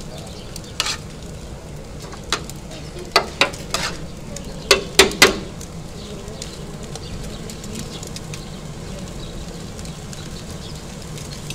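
Sharp clinks and knocks of utensils and hands working chopped doner meat in a steel pan, a cluster of them in the first half with the loudest about five seconds in. Under them a steady hiss and hum runs throughout.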